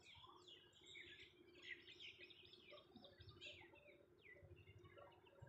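Faint chorus of small birds chirping, many short falling calls overlapping, over a faint low steady hum.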